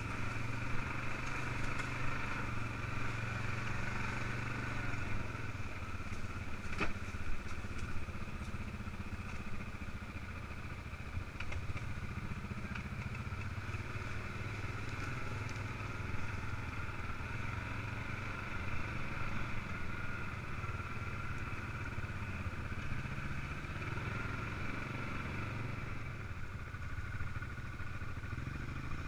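ATV (quad bike) engine running steadily under way, heard close up from on board, with one sharp knock about seven seconds in.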